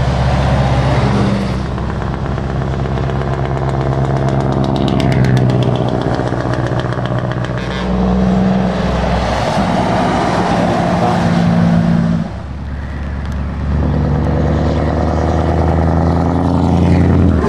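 Heavy diesel trucks passing one after another at a steady speed, their engines running with a low steady note, and tyres hissing on the wet road.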